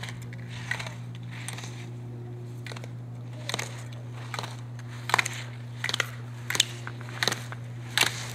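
A slalom racer's skis scraping across hard-packed snow, one short sharp scrape with each turn, about one every 0.7 seconds and growing louder as the racer comes closer. A steady low hum lies underneath.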